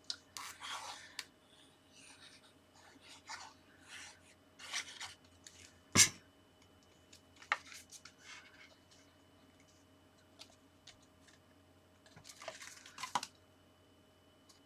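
Cardstock and pattern paper being handled and pressed into place on a card: scattered short rustles and sliding scuffs, with one sharp tap about six seconds in.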